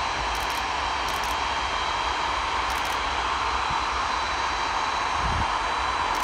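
Antonov An-225 Mriya's six turbofan jet engines running steadily as the aircraft taxis on the runway before take-off. It is an even jet noise with a thin, high, steady whine over it.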